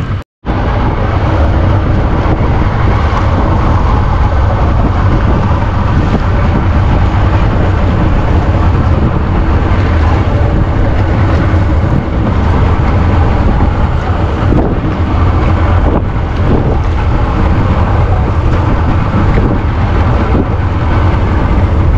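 Boat's outboard motor running steadily under way, with heavy wind noise buffeting the microphone. The sound cuts out for a split second just after the start.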